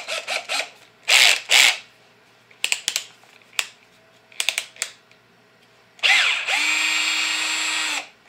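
BLACK+DECKER LDX120C 20V cordless drill/driver's motor trigger-pulled in several short bursts, each spinning up and straight back down, with a few sharp clicks in between. About six seconds in it runs for roughly two seconds, rising to a steady whine and winding down when released.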